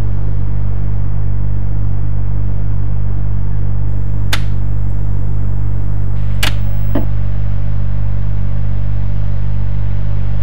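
Steady low rumble of a car running, heard from inside the cabin. Two sharp clicks cut through it, about four and six and a half seconds in.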